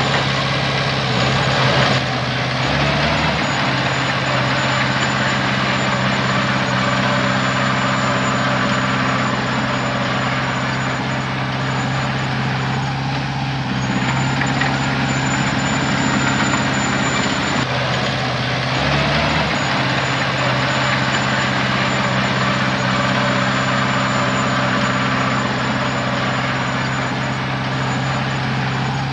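Heavy diesel engine of earthmoving machinery running steadily, with brief changes in its note about three seconds in and again near twenty seconds.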